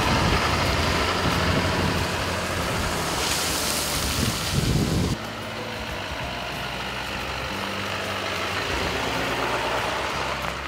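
Pickup truck driving past, engine and tyre noise, loudest a few seconds in. About halfway it gives way suddenly to a quieter, steady engine hum as the truck pulls slowly in towing a boat on its trailer.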